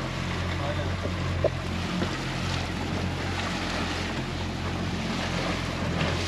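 A boat's engine running with a steady low hum, with wind and water noise around it.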